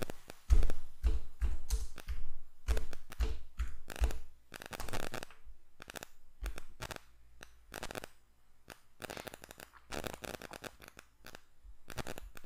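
Typing on a computer keyboard: irregular runs of key clicks, heaviest in the first few seconds, with some dull knocks, and mouse clicks.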